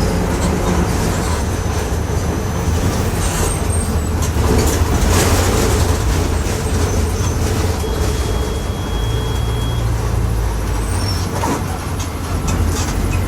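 Volkswagen 17.230 OD city bus under way, its engine and drivetrain giving a steady low drone with a loud differential growl, the sign of a worn differential. A few brief rattles come over it.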